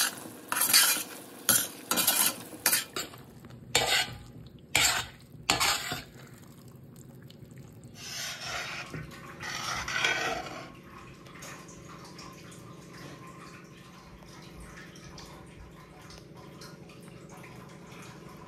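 A perforated steel ladle clanking and scraping against a stainless steel pan while stirring a thick cooking mixture: a run of about eight sharp strokes in the first six seconds, then a longer scrape about eight to ten seconds in, after which it goes quieter.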